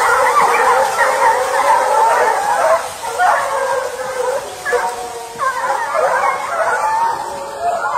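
A pack of hunting hounds baying and howling together, many dog voices overlapping, as the pack works through the woods. It cuts off suddenly at the end.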